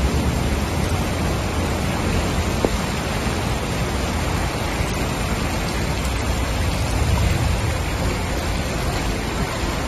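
Heavy rain: a steady hiss of a downpour falling on a flooded street, with a low rumble underneath.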